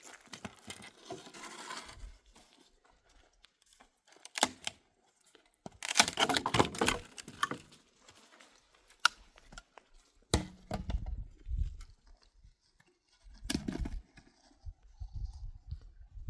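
Irregular rustling, crunching and scraping of things being handled, with a few sharp knocks. A longer, louder crunching stretch comes about six seconds in, and low thuds follow later.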